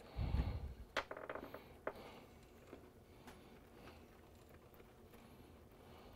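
Faint handling noise of cables being worked by hand inside an open electronic instrument chassis: soft rustling and small ticks as wiring is pulled through a bundle. A low bump comes at the very start and a sharper click about a second in.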